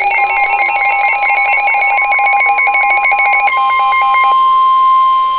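NOAA Weather Radio alert tones: a rapid electronic warble switching between two pitches, over a steady warning tone near 1 kHz. The warble stops about four seconds in, leaving the steady warning tone that comes before a flood warning.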